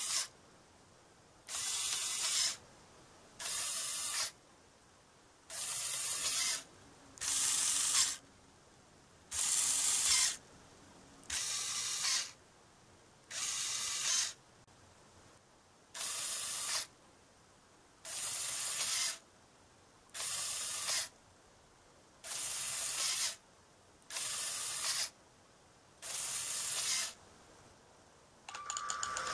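Small Lego electric motor and plastic gears whirring in short bursts of about a second, roughly every two seconds, as they drive the monorail switch rail back and forth.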